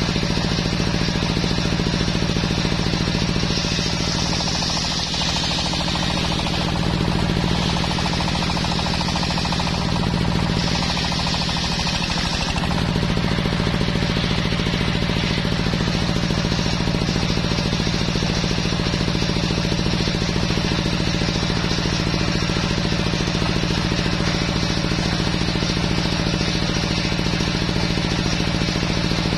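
Belt-driven table circular saw with its drive engine running at a steady hum. From about 4 to 12 seconds in, the blade rips through a teak log with a hissing rasp that stops and restarts twice, then the saw runs on without load.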